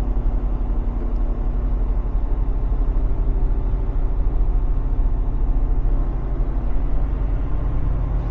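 Semi-truck diesel engine running steadily with a deep low rumble, heard from inside the cab.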